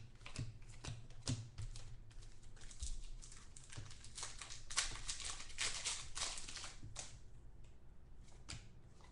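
Trading cards being handled and flipped through by hand: an irregular string of light clicks and taps with some rustling, busiest around the middle.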